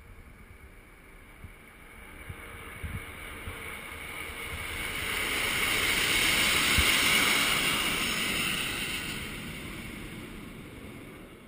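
A formation of military jets passing overhead: a rushing jet roar swells to its loudest about six to seven seconds in, then fades away.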